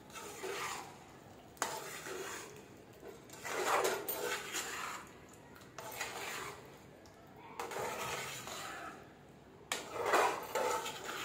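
A spoon stirring and scraping chicken, spices and yogurt around a karahi in repeated strokes every second or two, with a few sharp clinks of the spoon against the pan.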